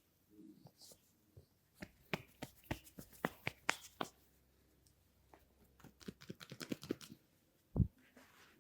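Hands at work in a head and neck massage, making quick runs of sharp clicks and taps about two seconds in and again past the middle, with one dull low thump near the end.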